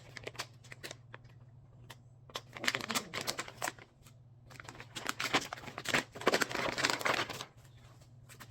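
Plastic packaging and fabric rustling and crinkling as shapewear leggings are unpacked and handled, in two spells of rustling, the second longer, around the middle of the stretch.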